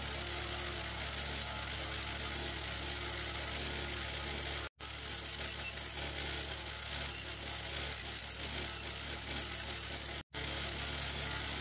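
Bench grinder motor running with a wire wheel brushing an old grinder guard clean for paint: a steady hum under a continuous high hiss. It cuts out for an instant twice, a few seconds apart.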